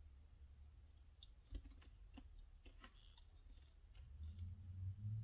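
A few faint, sharp clicks and taps from a small die-cast toy car being handled and turned over in the hands, clustered in the middle of an otherwise quiet stretch.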